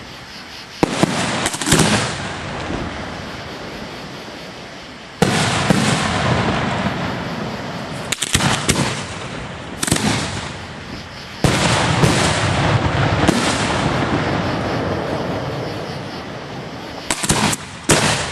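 Aerial firework shells bursting, heard from the ground near the firing site: about a dozen sharp bangs at irregular intervals, each trailing off in a long, slowly fading rumble.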